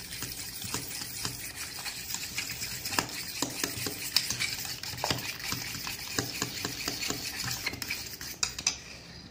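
Metal spoon beating eggs, sugar and oil briskly in a stainless steel bowl: a quick, continuous run of scrapes and clinks against the bowl, easing off near the end. The eggs are being beaten hard to make the cake batter spongy.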